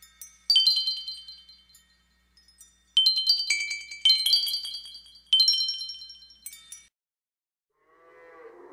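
Bright chime jingle: clusters of high ringing, bell-like notes struck four times, each fading away, as a logo sting. Near the end an animal call begins faintly and grows louder.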